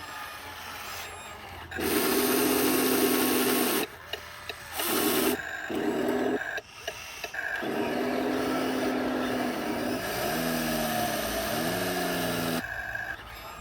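RC construction models' electric motors and gearboxes whining in stop-start bursts with a grinding rasp, the pitch wavering as the motor speeds up and slows down near the end.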